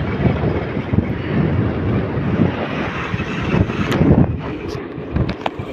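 Wind buffeting the microphone on a moving scooter: a gusty low rumble, with a few brief clicks in the second half.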